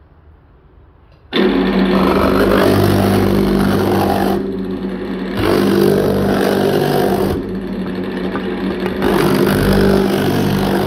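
Pullmax reciprocating metal-shaping machine with thumbnail shrinking dies running at its shortest, fastest stroke, starting abruptly about a second in and running loudly, louder in three stretches, as it works a sheet-metal edge to shrink it. It is noisy because the bushing on its drive coupling is worn and needs changing.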